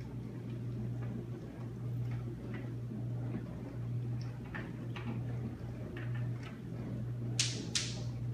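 Table knife spreading strawberry jam on bread on a plate: faint scrapes and light ticks, then two sharp clicks about half a second apart near the end, over a steady low hum.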